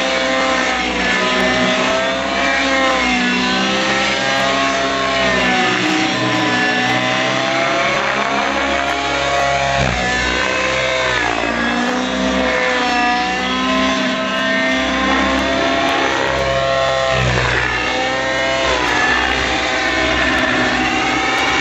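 Miniature Aircraft Stratus radio-controlled helicopter in aerobatic flight, its engine and rotor running continuously. The pitch keeps rising and falling every second or two as it climbs, dives and passes.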